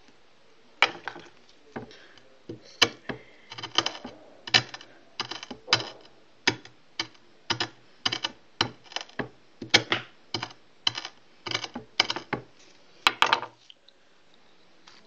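Repeated sharp taps of a dark tool handle pressing and crushing powder flat on a sheet of paper on a hard tabletop, about one to two a second, stopping near the end.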